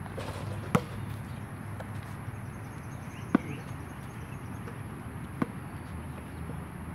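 A basketball striking hard surfaces on an outdoor court: three separate sharp impacts, about a second in, about three and a half seconds in (the loudest) and about five and a half seconds in, over a steady background hum.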